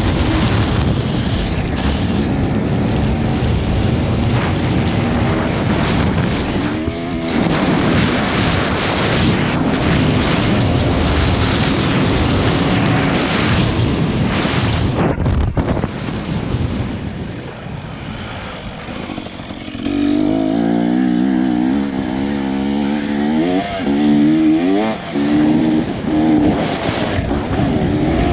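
Motocross bike engine revving up and down under heavy wind buffeting on a helmet-mounted microphone. The engine note rises and falls with the throttle and comes through most clearly in the last third, after a brief quieter dip.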